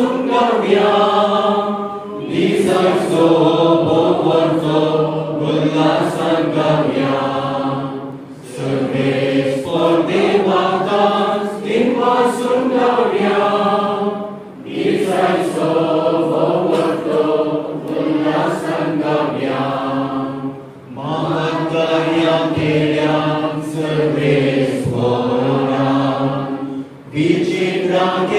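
A congregation singing a hymn together, led by a man's voice into a microphone, in phrases broken by short pauses about every six seconds.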